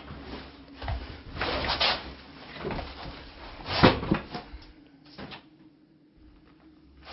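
Rummaging through bedding and clothes: a padded comforter and a jacket rustle as they are lifted and moved, with a few knocks along the way, the loudest about four seconds in.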